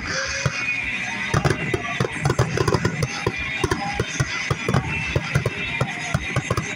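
Music playing inside a car, overlaid by many sharp bangs and crackles from aerial fireworks bursting.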